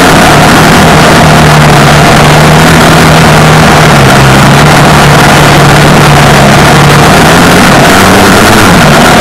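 An off-road vehicle's engine running at fairly steady revs, very loud on the microphone. Its pitch dips slightly around the middle and picks up again near the end, over a constant rushing noise.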